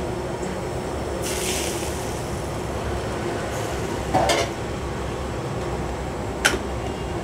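Steel ladle stirring chole in a large steel pan: a metal clank about four seconds in and a sharp clink of the ladle on the pan near the end, with a brief hiss about a second in, over a steady background hum.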